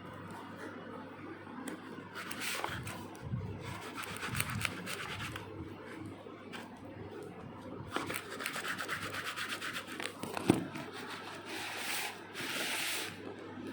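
A knife cutting and scraping through the packaging of a parcel in several spells of rapid rasping strokes, with a sharp click about ten seconds in.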